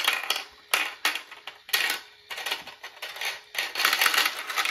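Plastic balls dropped into a plastic toy ball-run castle, clattering down its spiral and tracks. First come a few separate clacks, then from about three and a half seconds a dense, continuous rattle as many balls run at once.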